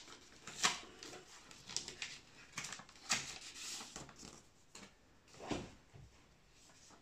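Paper cards and a letter being handled and pulled apart: a few short, irregular, quiet rustles and scrapes of paper.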